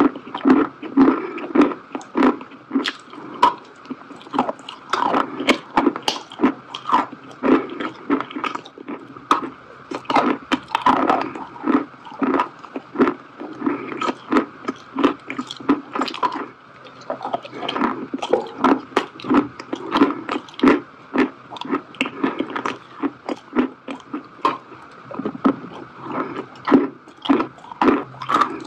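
A person chewing a soft, crumbly food close to the microphone: steady, irregular wet mouth sounds with many small clicks and lip smacks.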